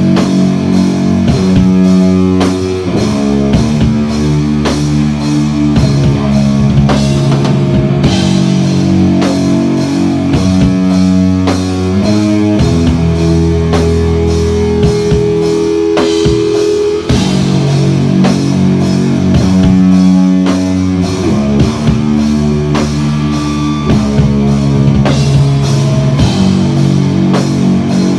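Live instrumental rock band playing: electric guitars and bass over a steady drum-kit beat, with a long held guitar note around the middle.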